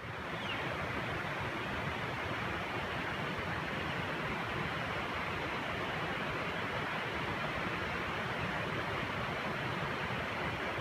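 A steady, even rushing noise that fades in over the first second and holds without change.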